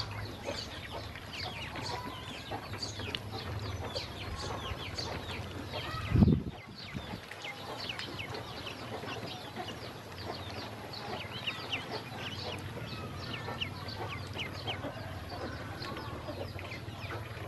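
A flock of ducklings peeping constantly, many short high chirps overlapping. A brief low thump sounds about six seconds in.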